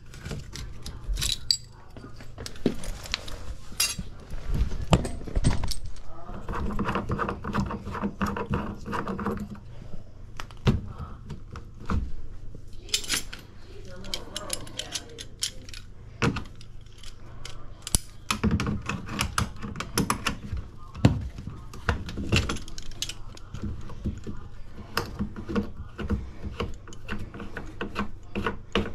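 Hand tools working on an air handler's metal fittings and panels: irregular clicks, taps and clinks of metal on metal, with denser clattering now and then.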